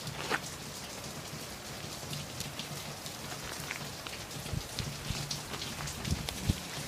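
Rain falling steadily, with scattered drops ticking close by.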